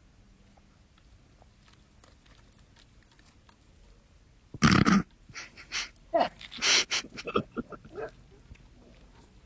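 A cow snorting: one loud snort about halfway through, then a quick run of shorter snorts and blowing breaths over about three seconds.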